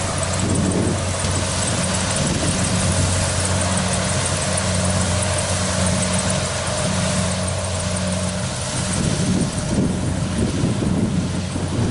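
Kubota DC70 Plus combine harvester running steadily, its engine giving a constant low hum over a broad mechanical rush.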